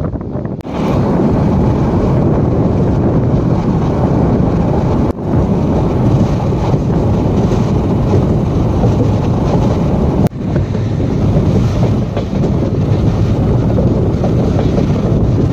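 Wind buffeting the microphone held out of a moving passenger train's window, over the steady running rumble of the coaches on the track. The noise breaks off for an instant twice.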